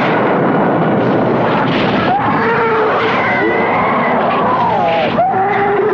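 Cartoon action sound effects: a creature's gliding, screeching cries over a dense, loud din.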